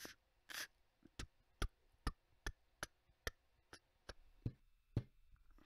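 A faint run of about a dozen short, sharp clicks or taps, evenly paced at two to three a second.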